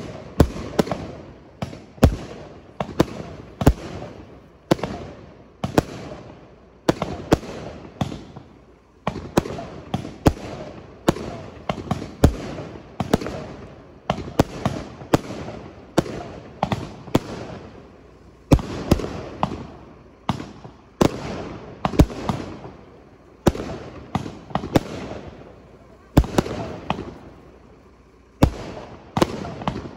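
Aerial fireworks display: a steady series of sharp bangs from bursting shells, about one or two a second, with smaller crackling pops and echoing rumble between them.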